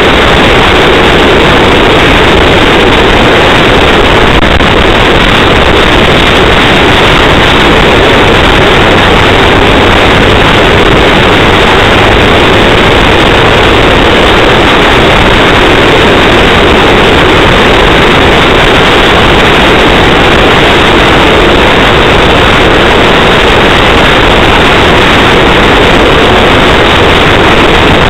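Ford Focus driving at speed, heard through a dashcam microphone: a steady, loud mix of road, engine and wind noise, unchanging throughout.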